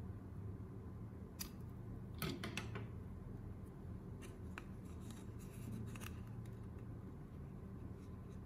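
Steel scissors snipping something small: a single click, then a quick cluster of sharp snips about two seconds in, followed by scattered light clicks and taps as a small plastic LED bulb housing is handled.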